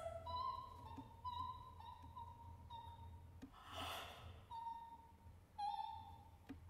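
Soprano voice in extended technique: a string of short, soft high notes on nearly the same pitch, broken by a breathy, sigh-like rush of air about four seconds in.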